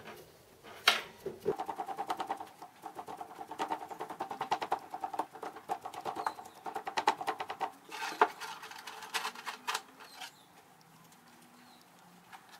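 Wooden hand rammer pounding molding sand into a wooden flask: one sharp knock about a second in, then rapid dull knocks, several a second, for about six seconds, and a few heavier knocks before it stops.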